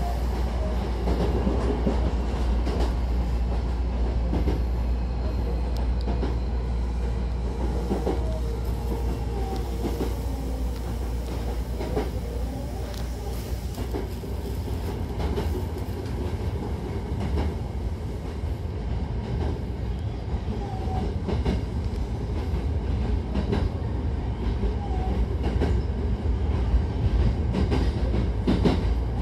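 Hankyu electric train running, heard from inside the passenger car: a steady rumble of wheels on rails, with scattered sharp clicks.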